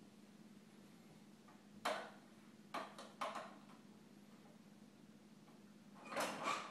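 A few short knocks and scuffs from a toddler playing with a small plastic toy: one about two seconds in, two more around three seconds, and a louder cluster near the end, over a faint steady hum.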